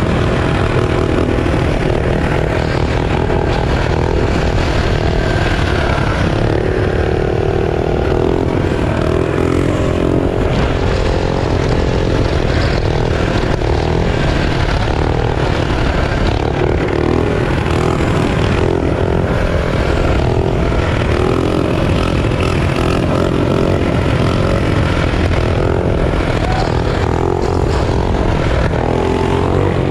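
Performance mini bike's small engine running continuously while being ridden, its note rising and falling with the throttle.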